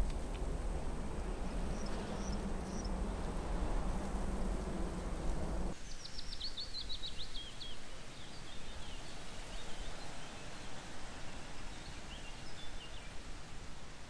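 Steady low rumble of wind on the microphone with a few faint chirps, which cuts off sharply about six seconds in. Quieter open-air ambience with a soft steady hiss follows, and a small songbird sings a quick run of falling high notes, with a few more chirps near the end.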